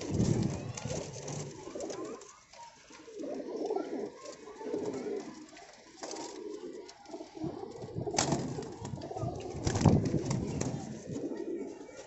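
Domestic pigeons cooing in a loft, a run of low pulsing coos. Two sharp clattering sounds come about eight and ten seconds in, the second the loudest.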